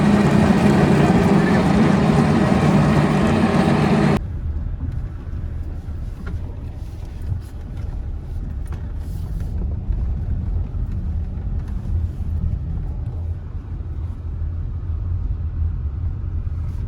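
Loud, steady rushing noise that cuts off suddenly about four seconds in, followed by the quieter, steady low rumble of a car driving.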